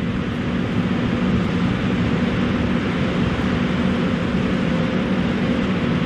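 Werden P-127 outdoor warning siren sounding its steady single-tone alert: a low, steady tone over a heavy rushing noise.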